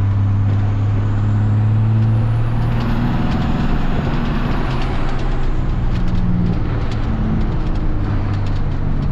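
5.9-litre 12-valve Cummins inline-six turbo diesel running steadily in a pickup truck, with a faint high whistle rising and fading over a few seconds near the middle.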